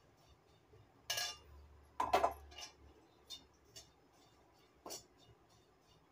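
A utensil scraping and clinking against a dry kadai as crushed dry ginger is stirred during dry-roasting on a low flame. It comes as a handful of separate strokes, the loudest about two seconds in.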